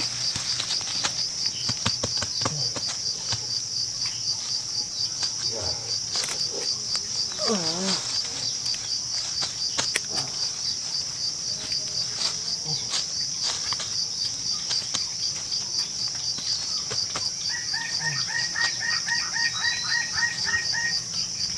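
Steady, rapidly pulsing high chirring of forest insects such as crickets or cicadas, with scattered light clicks. Near the end a bird gives a quick run of repeated short notes.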